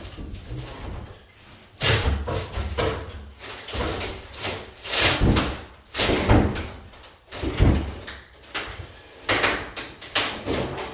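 Repeated heavy blows and crashes as a wooden cabinet is smashed apart: about eight or nine loud hits, irregularly spaced, each followed by a brief clatter.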